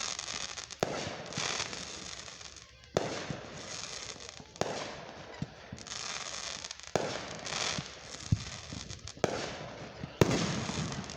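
Aerial fireworks shells bursting: several sharp bangs a second or two apart, each followed by a second or two of dense crackling.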